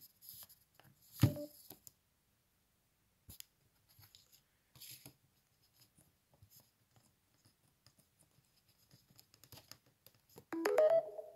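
Faint scrapes and clicks of a USB-C charging cable being handled at a Samsung Galaxy phone's port, with one sharp knock about a second in. Near the end comes a short pitched chime lasting about a second, the phone's charging-connected sound as the cable goes in.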